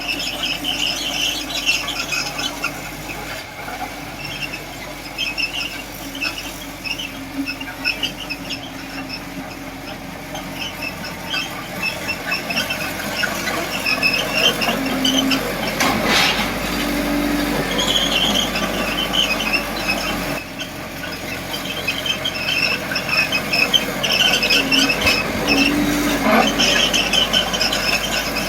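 Komatsu D20P small crawler bulldozer working, its steel tracks squealing in irregular, high-pitched chirps over the engine.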